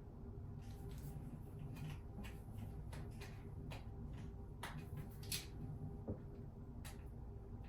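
Faint, scattered plastic clicks and scrapes of hands working at a toilet seat's hinge area to take the lid off, with a few sharper ticks past the middle, over a low steady room hum.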